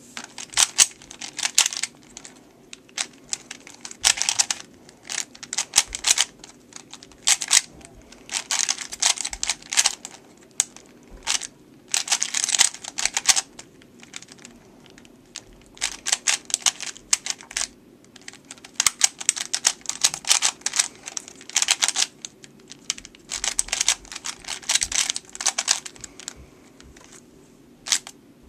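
3x3 Rubik's Cube being turned fast in a speedsolve: quick runs of plastic clicking as the layers snap round, broken by short pauses between sequences of moves.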